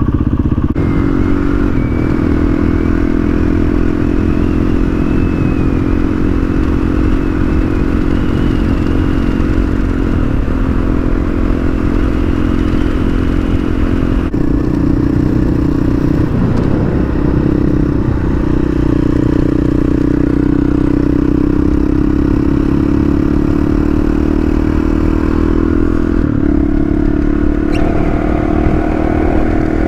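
Honda CRF450 dual-sport motorcycle's single-cylinder four-stroke engine running at a steady cruise, its pitch easing up and down a little, with the tyres crackling over a gravel road.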